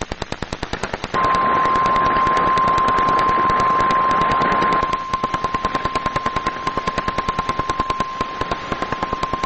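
NOAA Weather Radio warning alarm tone, a single steady tone of about 1050 Hz, starts about a second in and holds to the end; it signals that a warning broadcast follows. Under it the radio static crackles with rapid, even pops, about eight a second.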